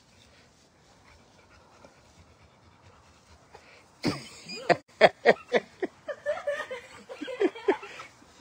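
Rottweilers barking in play: after a quiet start, a quick run of short sharp barks, each dropping in pitch, begins about halfway in and goes on to the end.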